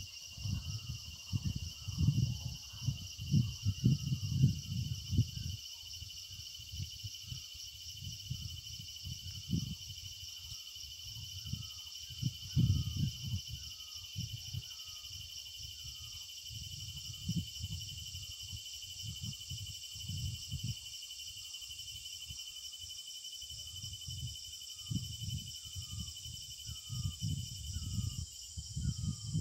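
Steady chorus of insects with a short chirp repeating about once a second, broken by irregular gusts of wind buffeting the microphone, which are the loudest sound.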